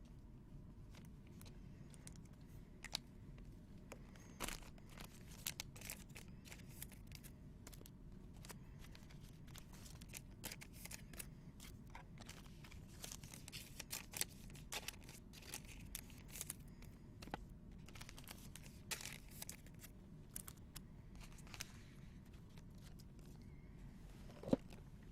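Trading cards and their foil pack wrappers being handled: faint scattered clicks, tears and rustles at an uneven pace.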